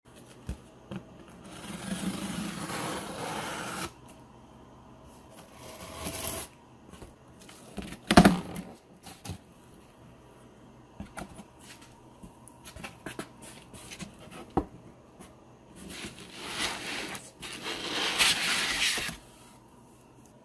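A cardboard shipping carton being unpacked by hand: flaps and cardboard scraping and rustling, and foam packing wrap rubbing in several spells. A sharp knock about eight seconds in is the loudest sound, with scattered small clicks.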